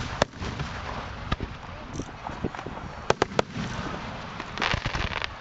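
Aerial fireworks shells bursting overhead with sharp bangs: a single bang near the start, another about a second later, then a quick run of three about three seconds in. A dense spell of crackling follows near the end.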